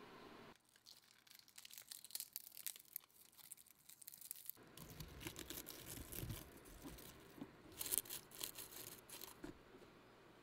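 Dry crackling and crinkling from hands working dry terrarium substrate and leaf litter, a dense run of crisp clicks lasting several seconds. Soft low knocks join in from about halfway.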